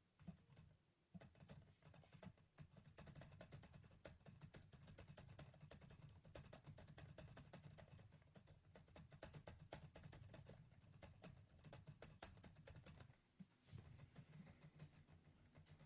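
Quiet, fast typing on the GIGABYTE Phantasus P15F V3 laptop's built-in keyboard: a continuous stream of soft key clicks, with a brief pause about three seconds before the end.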